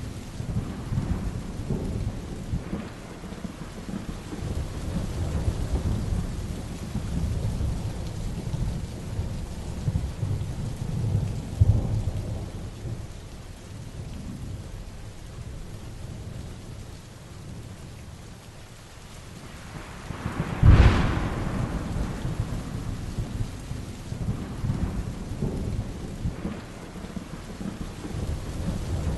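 Heavy rain with rolling thunder: a continuous low rumble under the hiss of rain, easing briefly and then broken by a sharp, loud thunderclap about two-thirds of the way through, followed by more rumbling.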